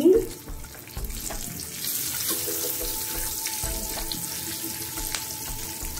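Hot oil sizzling in a nonstick pan with mustard seeds, curry leaves and asafoetida as a tempering, stirred with a spatula; the hiss grows louder about two seconds in, with a few sharp ticks. Soft background music underneath.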